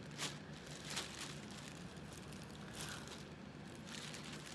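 Faint handling noise: two light clicks about a second in, with soft rustling over a low steady hum.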